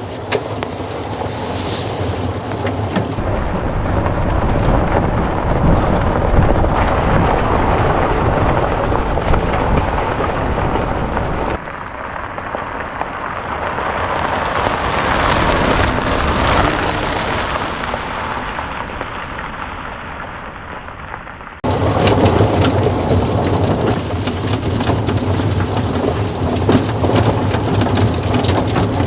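Strong wind from a windstorm buffeting the microphone in a heavy low roar, over a golf cart rattling along as it drives. The sound changes abruptly twice, dropping about eleven seconds in and jumping back up about ten seconds later.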